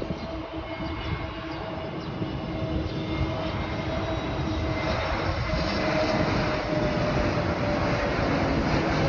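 Jet airliner on landing approach with its gear down, its engine noise a steady rushing hum with a faint held whine, growing gradually louder as it flies closer.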